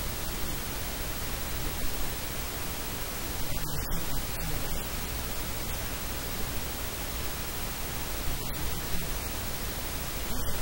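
Steady, even hiss like static over the whole sound track, with a faint low hum beneath it; no speech comes through, although the man on screen is talking.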